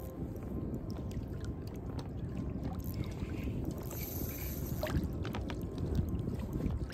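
Water slapping and rushing around a float tube on choppy open water, a steady deep wash with scattered faint clicks.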